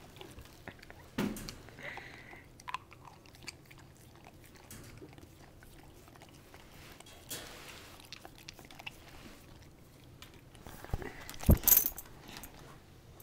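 A dog licking and chewing a hard lollipop on a stick, with scattered wet smacks and small crunching clicks. Two loud knocks come near the end.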